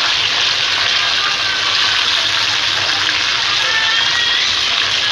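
Pieces of chicken breast coated in cornflour and egg white sizzling steadily in hot oil in a pan as they are turned with a silicone spatula. The chicken is fried to a light golden colour and done.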